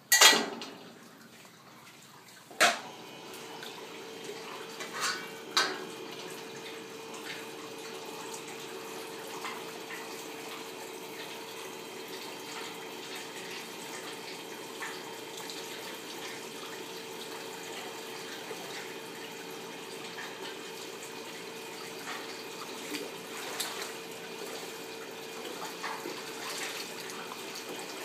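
Water sloshing and splashing in a hydrographic dip tank as a rifle part is pushed under and moved about in the water. There is a sharp knock at the start and another a few seconds in, after which a steady hum with running water carries on.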